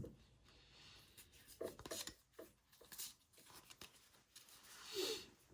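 Football trading cards being handled and flipped through by hand: faint paper slides, rustles and soft clicks as the cards rub against one another, with a slightly louder rustle near the end.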